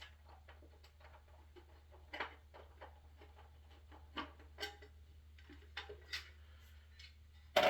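Scattered light clicks and taps, with one sharper click near the end, from handling the metal access plate and insulation of an electric water heater's upper thermostat compartment.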